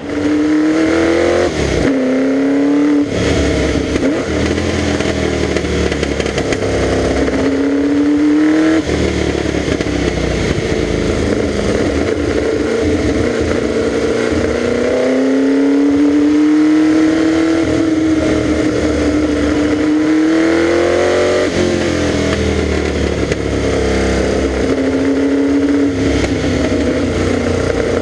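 Serenissima Mk168's 3-litre V8 racing engine driven hard, its revs climbing and then dropping sharply several times as it accelerates and changes gear.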